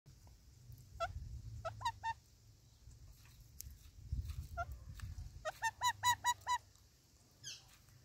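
Indian ringneck parakeet calling in short, harsh squawks: a few scattered calls, then a quick run of about seven near the end. A low rumble sits underneath.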